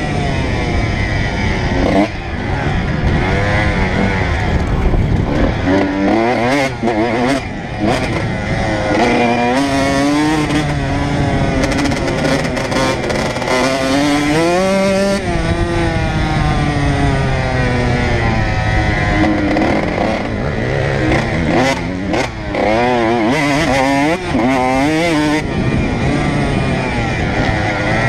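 Honda CR125 single-cylinder two-stroke motocross engine revving up and down again and again as the bike accelerates, shifts and backs off around the track. Wind rushes over the microphone, and there are a few sharp knocks.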